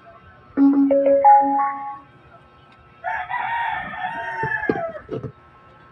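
A mini Bluetooth speaker's power-on jingle: a short series of steady electronic tones stepping up in pitch. About a second later a rooster crows once, a long call that falls away at the end, with a few low knocks near its close.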